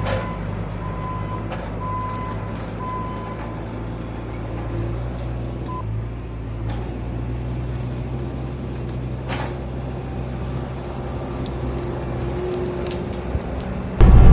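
Bobcat T650 compact track loader's diesel engine running steadily at working speed, with a few sharp cracks, one near the start and one about nine seconds in. The sound jumps abruptly much louder right at the very end.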